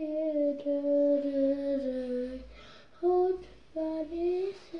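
A young girl humming a wordless tune: one long note that sinks slowly in pitch for about two seconds, then two short notes near the end.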